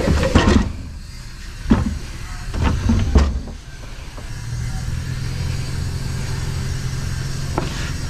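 Several knocks and clunks as a piece of scrap is handled and flipped over, then from about four seconds in a vehicle engine running with a steady low hum.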